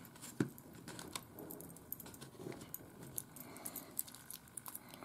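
Light, scattered clicks and taps of fingers handling a camcorder's opened metal case and its removed pouch battery, the sharpest click about half a second in.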